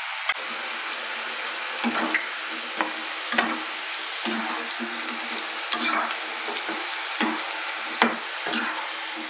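Batter-coated potato sticks deep-frying in hot oil with a steady sizzle, on their second fry to crisp them. A perforated metal skimmer stirs them and clinks and scrapes against the pan several times, loudest about eight seconds in.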